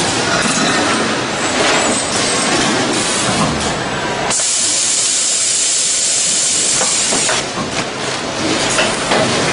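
Packing machine bagging frozen chicken legs, running with rattling and knocking. About four seconds in, a loud steady hiss of air from the machine's pneumatic jaws covers everything for about three seconds and then stops suddenly, before the knocking returns.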